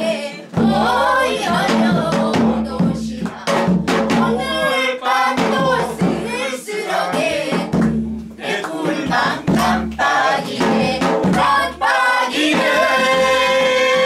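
A group of men and women singing a Korean folk song together, with a drum beating the rhythm underneath. Near the end the voices settle onto one long held note.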